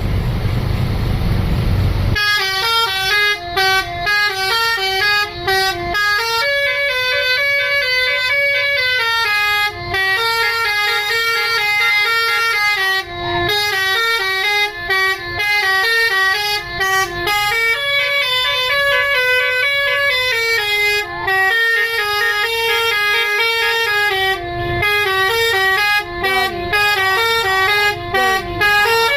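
Low rumble for about two seconds, then an Indonesian bus's 'basuri' telolet horn plays a melody. The notes step quickly up and down and go on without pause.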